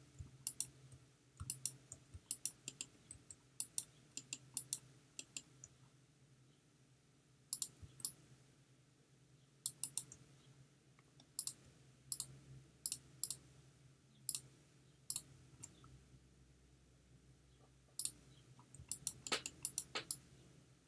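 Sharp, faint clicks of a computer mouse and keyboard, in quick runs with gaps of a second or two between them, over a faint low hum.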